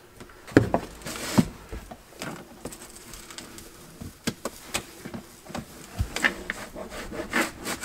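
Scattered light knocks, taps and rubbing as hands and knees move over the floor and press down self-stick vinyl tiles, with a brief rustle about a second in.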